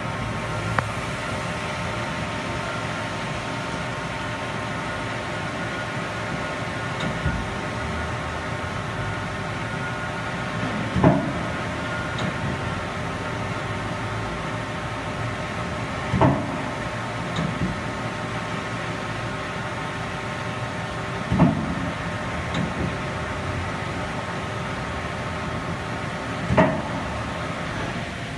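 Mori Seiki NH4000 DCG horizontal machining center running under power, a steady hum made up of several tones, with four short clunks at even spacing about five seconds apart.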